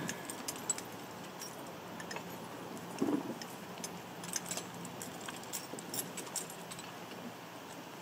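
Light, scattered metallic clinks and jingles of harness and implement fittings on a horse-drawn potato digger as it is handled, with a soft thud about three seconds in.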